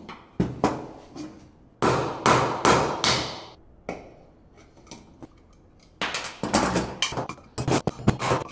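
Irregular sharp metal clanks and knocks, each with a short ringing tail, from hand work on metal conduit and fittings. A louder cluster comes about two seconds in, then a few faint taps, then a quicker run of clanks near the end.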